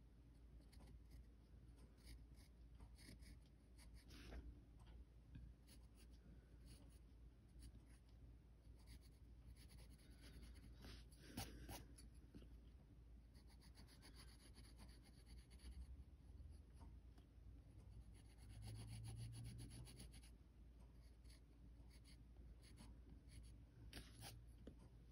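Faint scratching of a pencil sketching on paper in short, irregular strokes.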